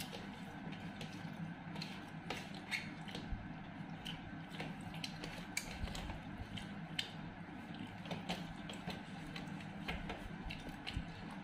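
Eating with the hands: fingers mixing and scooping rice on plates, with many small irregular clicks and taps against the plates and soft chewing, over a steady low hum.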